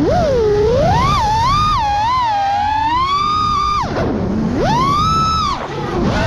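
6S FPV freestyle quadcopter's brushless motors whining, the pitch sliding up and down with the throttle. The throttle is chopped sharply about four seconds in and again near the end, the whine falling low, then punched back up.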